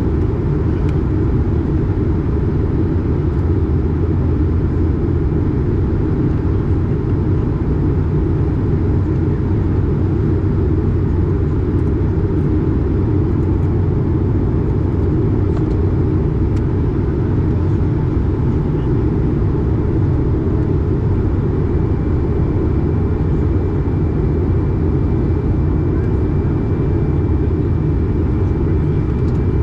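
Airbus A220 cabin noise heard from a window seat near the engine: the steady low rumble of the Pratt & Whitney PW1500G geared turbofans and the airflow during descent. A faint high whine joins about two-thirds of the way through.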